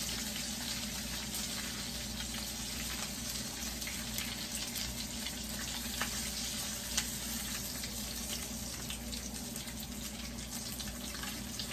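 Hamburger steaks frying in their own grease in a skillet: a steady sizzling hiss, with one brief tap about seven seconds in.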